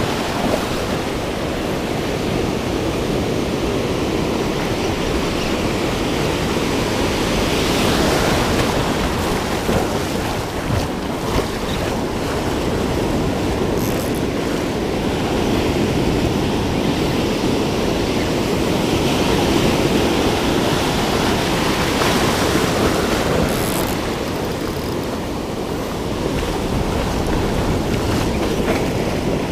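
Ocean surf washing and breaking on a sandy beach, with wind on the microphone. The wash swells louder a couple of times as waves run in.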